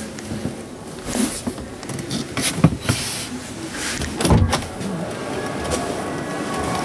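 Truck cab door opened from inside: the interior handle is pulled and the latch clicks open about four seconds in, among a few knocks of moving about the cab, over steady exhibition-hall background noise.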